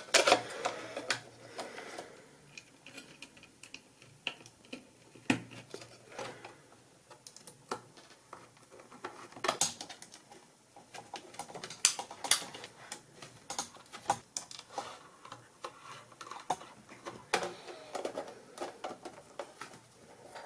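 Irregular clicks, taps and knocks of a computer ATX power supply being put back together by hand: its metal casing and parts handled and fitted into place.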